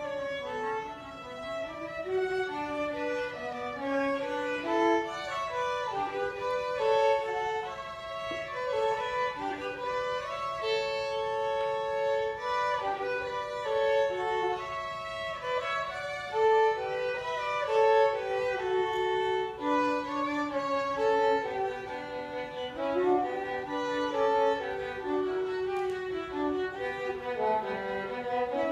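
Two violins playing a duet, two melodic lines moving together with a mix of held notes and quicker passages.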